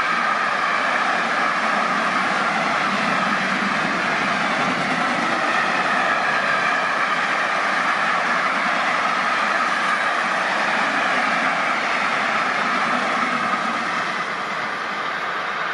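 Freight train of container wagons rolling past, a steady noise of steel wheels on the rails that eases slightly near the end.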